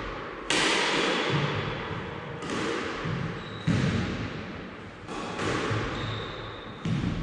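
Squash ball being hit during a drill: about five sharp hits a second or two apart, each ringing out in the enclosed court.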